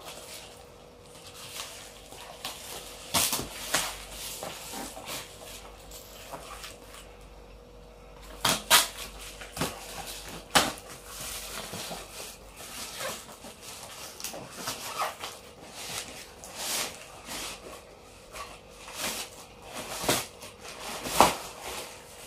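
Plastic parcel wrapping being cut with scissors and torn off a cardboard box, crinkling and rustling, with knocks and scrapes as the box is handled.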